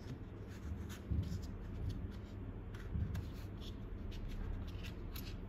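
Small watchmaker's tools handled in a fitted hard carrying case: tweezers set back into their slot and a screwdriver lifted out. The handling gives scattered light clicks, taps and rubs, with two soft knocks, one about a second in and one about three seconds in.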